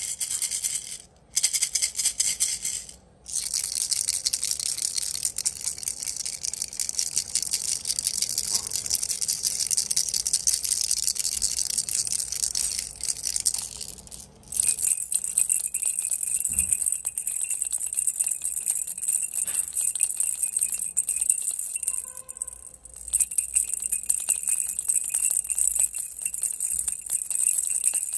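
Baby rattle shaken continuously in a fast, dense rattle, with a few short pauses. Midway it changes to a brighter rattle with a thin ringing tone.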